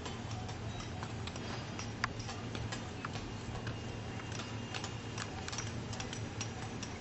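Irregular sharp clicks and taps, with one louder knock about two seconds in, over a steady low hum.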